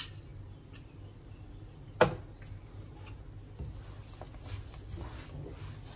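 Sharp clinks of a metal spoon against a small glass bowl, once at the start and again about two seconds in, then a spatula stirring and scraping dried shrimp and fish sauce in a wok with a faint hiss.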